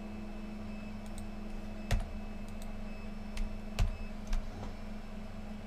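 A handful of sharp, scattered clicks from working a computer at the desk, over a steady low hum.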